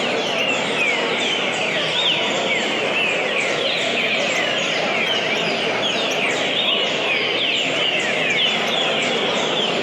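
Green-winged saltator (trinca-ferro) singing a continuous run of quick, overlapping chirping notes, over a steady background hiss.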